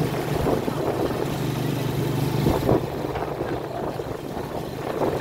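Small motorcycle engine running steadily with a low hum, with wind rushing over the microphone as it rides along.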